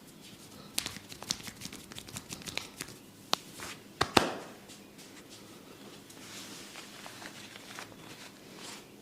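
Hands at work in a head massage. A quick, irregular run of small crackling clicks starts about a second in. Two sharp pops come around four seconds in, the second one the loudest. Softer rubbing and rustling follows near the end.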